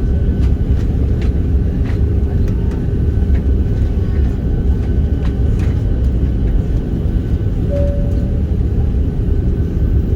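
Steady roar of an Airbus A330-300's engines and rushing air heard inside the passenger cabin, with a constant hum, faint scattered clicks, and a short higher tone about eight seconds in.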